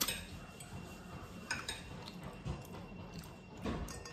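Metal forks and spoons scraping and clinking against glass plates and a glass bowl while scooping up leftover noodles, a few light, scattered clicks.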